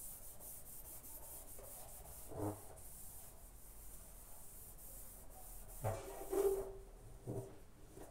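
A hand rubbing adhesive aluminium tape flat onto a satellite dish, a run of quick swishing strokes. A few dull knocks come through, the loudest about six seconds in.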